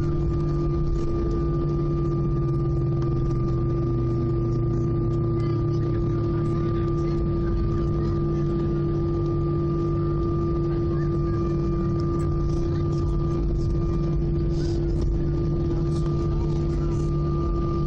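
Airbus A319's CFM56 turbofan engines idling during taxi, heard from inside the cabin as a steady drone with a couple of constant tones over a low hum.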